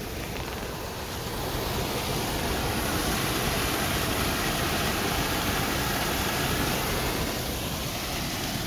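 Steady rushing of swollen, muddy floodwater pouring over a pond's stone spillway at very high flood flow.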